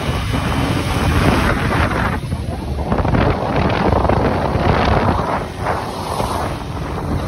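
Wind buffeting the microphone over the noise of a moving vehicle and traffic, a rough, fluctuating rush with no clear engine tone.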